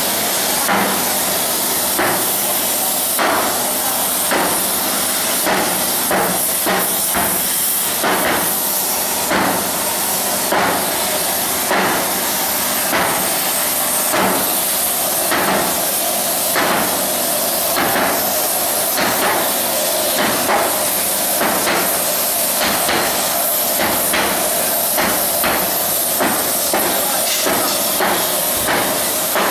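Hammers striking a hot steel boiler plate being hand-flanged into a steam-locomotive firebox tube sheet: repeated metallic blows at an uneven pace, roughly one a second. A steady hiss of the gas torches heating the plate runs underneath.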